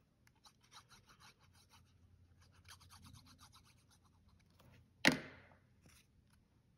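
Faint scratching and rubbing of a liquid glue bottle's applicator tip drawn along a strip of cardstock, with small ticks as the paper is handled. About five seconds in, a single sharp knock on the work surface, the loudest sound here.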